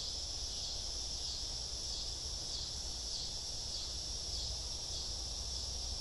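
Steady high-pitched drone of an insect chorus, with a low rumble underneath.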